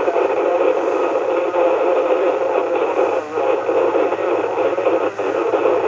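An AnyTone AT-6666Pro radio's receiver hissing with steady static through its speaker on CB channel 37. The sound is confined to a narrow, voice-like range. The set is in FM mode, so AM traffic on the channel comes through only as noise.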